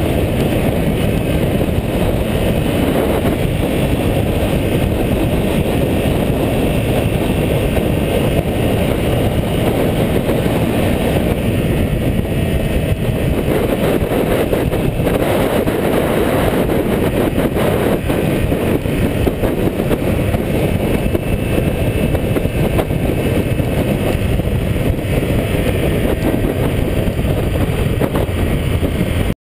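Honda CBR250R single-cylinder motorcycle riding at steady speed, heard as a loud, steady rush of wind over the mounted microphone mixed with engine and road noise. It cuts off suddenly near the end.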